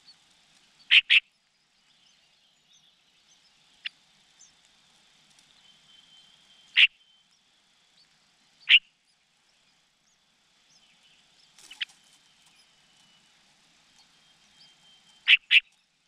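Short, sharp bird chirps at a bulbul's nest of begging nestlings, one of them a cuckoo chick. The chirps come singly every few seconds, with quick pairs about a second in and near the end, over a faint thin high whine.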